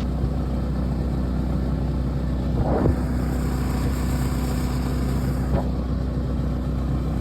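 Outboard motor on a john boat running steadily at one speed.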